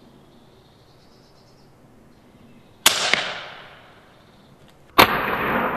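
An FX Bobcat arrow-shooting air rifle fires about three seconds in: a sharp crack of released air, then a click as the arrow strikes, and a hiss that fades out. Near the end a second, louder sharp blast follows, with a longer hissing tail.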